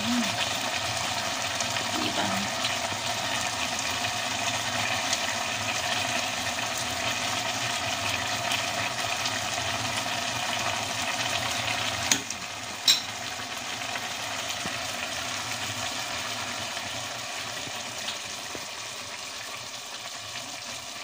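Bihon rice noodles and broth sizzling and bubbling in a stainless steel pot as they cook down, a steady hiss. Two sharp clicks a little past halfway.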